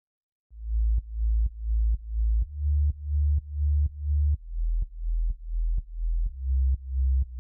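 Electronic background music intro: a deep synth bass note pulsing about twice a second, each pulse starting with a click, stepping to a lower note partway through.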